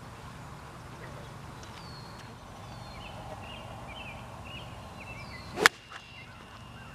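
A tee shot with a hickory-shafted golf club: a short rising swoosh of the swing, then a single sharp crack as the club strikes the ball, about five and a half seconds in.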